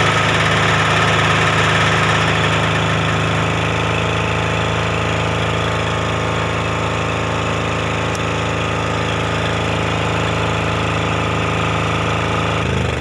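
Silent diesel generator set with an 1105 diesel engine running steadily, first under electrical load and then with the load off. Just before the end the sound changes abruptly as the STOP button is pressed and the engine begins to run down.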